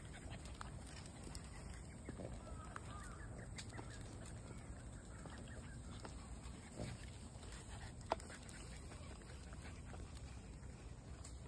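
Quiet outdoor ambience: a steady low rumble with faint bird calls a few seconds in, and one sharp click about eight seconds in.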